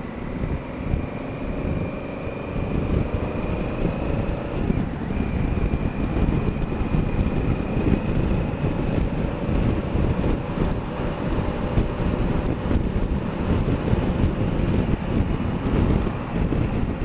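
Honda Africa Twin CRF1000L's parallel-twin engine running under way, mixed with heavy wind buffeting on the camera microphone. The wind noise grows louder about three seconds in.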